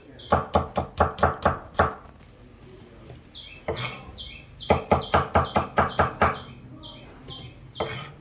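Broad-bladed kitchen knife chopping garlic cloves on a thick wooden chopping block: quick runs of sharp knocks, about five a second, in two bursts with a pause of about two seconds between them and one last knock near the end.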